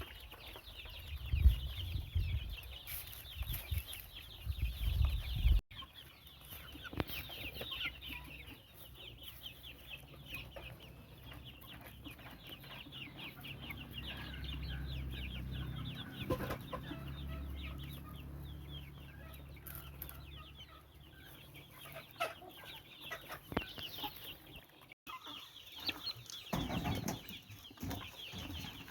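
A flock of Bangkok game chicken chicks peeping continuously in rapid high chirps, with some clucking. Loud low bumps of handling or knocking come in the first few seconds, and the sound cuts out abruptly twice.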